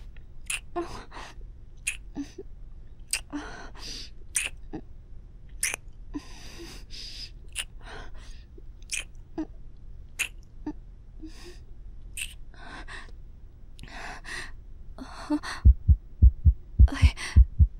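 A young woman's breathy gasps and shaky breaths with small mouth clicks, and no words. About two seconds before the end, a loud heartbeat sound effect comes in: fast, low thuds in pairs.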